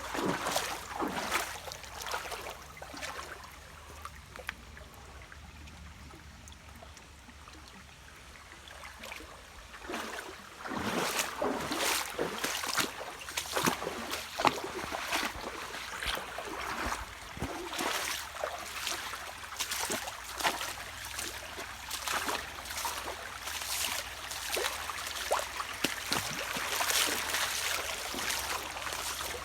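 Shallow creek running over rock, with irregular splashes of someone wading through the water from about ten seconds in.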